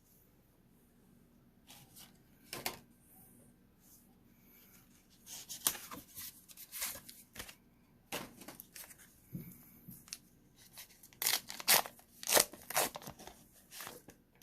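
A Pokémon card pack wrapper being torn open and the cards handled. After a few light clicks, a run of short ripping and crinkling sounds starts about five seconds in, loudest near the end.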